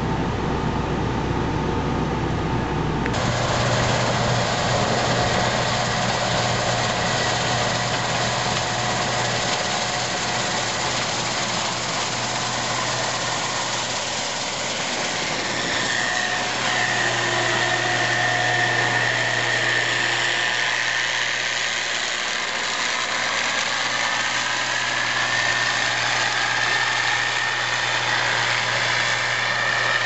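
Case IH combine harvester running under load while cutting soybeans: a steady machine drone, with a high whine that comes in about halfway and holds. The sound changes abruptly about three seconds in.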